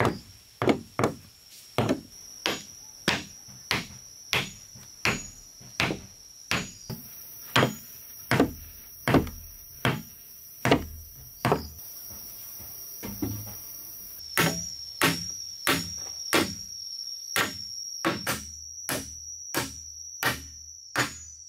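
Small hatchet striking the wooden wall planks, a steady run of sharp wooden knocks about one and a half a second. They pause for about two seconds near the middle, then come back a little quicker.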